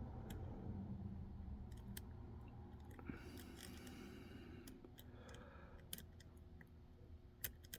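Faint scraping and a few light, scattered clicks of a lock pick and tension wrench working the pins inside a Mul-T-Lock Interactive lock, a pin-tumbler lock with inner and outer pins.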